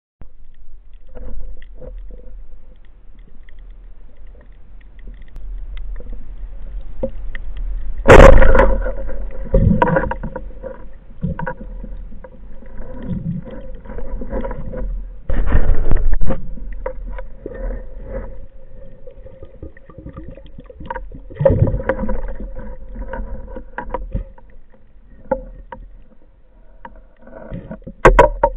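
Underwater sound picked up through a camera housing on a speargun: muffled water movement and knocking with a steady faint hum. There are several loud sharp bangs, the loudest about eight seconds in, another around fifteen seconds and one near the end.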